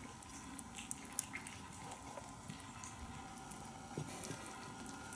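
Kittens eating from a metal dish and lapping water: faint, scattered small clicks and ticks.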